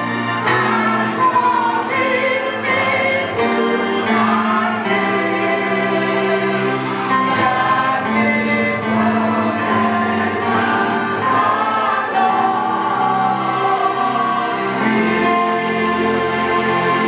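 Church choir singing gospel praise music, many voices together over sustained accompaniment.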